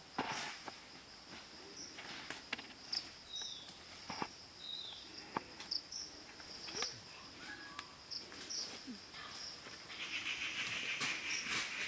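Forest ambience: a steady high insect drone with short bird chirps over it, and scattered clicks of stones and small knocks near at hand. A high rustling hiss builds up in the last couple of seconds.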